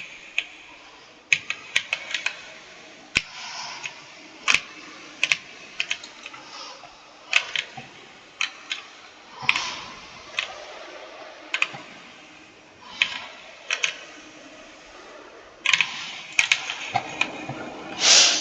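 Computer keyboard keys being pressed one at a time, giving irregular, separate clicks with pauses between them. A quicker, louder run of keystrokes comes near the end.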